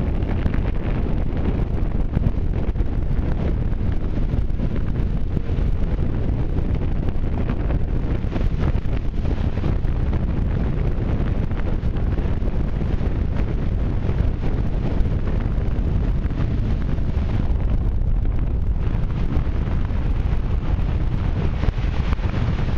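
Steady wind buffeting the microphone on a boat running at speed, with water rushing along the hulls and wakes.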